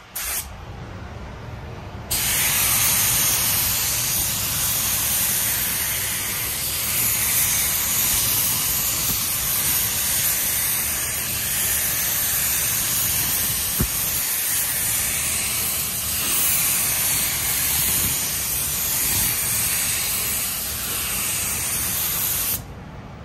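Compressed-air paint spray gun spraying, a steady hiss of air and atomised paint. A short blast at the very start, then one long pass from about two seconds in that cuts off shortly before the end.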